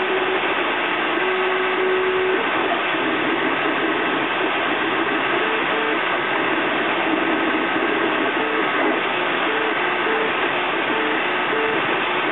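3D printer printing: the stepper motors sing in short notes that jump in pitch every fraction of a second as the print head moves, over the steady rush of the cooling fans.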